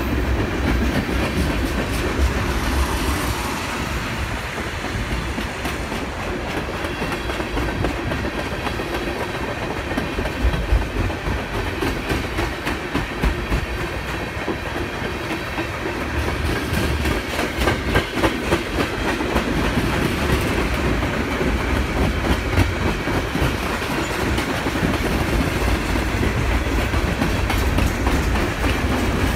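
Freight cars of a long train rolling past close by: a steady rumble of steel wheels on rail, with repeated sharp clicks as the wheel sets pass over rail joints, most frequent in the middle stretch.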